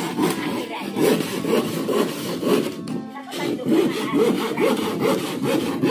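Hand saw cutting wood in quick, even back-and-forth strokes, about two to three a second.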